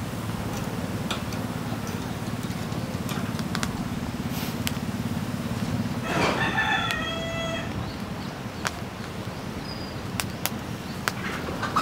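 A rooster crows once, a long call in several segments about six seconds in, over a steady low background rumble with scattered small clicks.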